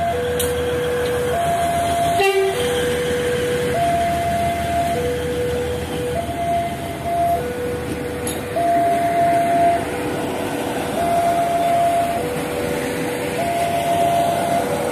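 Level-crossing warning alarm sounding in two alternating tones, low then high, each held a little over a second, over the rumble of a Prameks commuter train rolling across the crossing. The alarm signals that the crossing is closed while the train passes.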